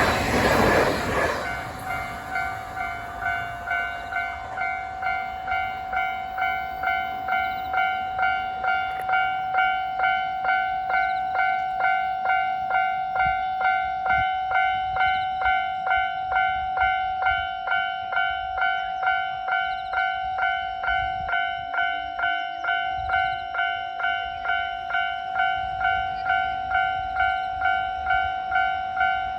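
A train's passing noise dies away in the first second or two. A level-crossing warning bell then rings on and on, an electronic ding repeated at an even, rapid rate, sounding the warning that a train is coming through.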